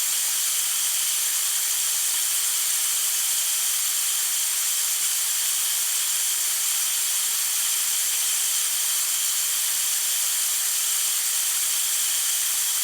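Steady hiss of water escaping from a leaking pipe, an even spray sound with no separate drips.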